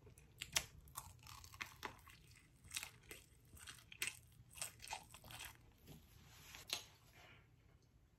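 Close-miked chewing of a big mouthful of Korean corn dog, the fried batter crunching in irregular bites.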